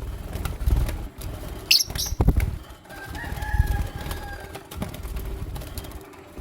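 Lutino lovebirds flapping their wings with low thuds, a short sharp high chirp a little under two seconds in, and a thin steady note held for about a second and a half after three seconds.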